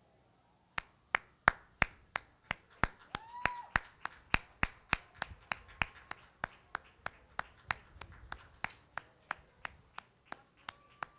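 A steady run of sharp single clicks, about three a second, starting about a second in.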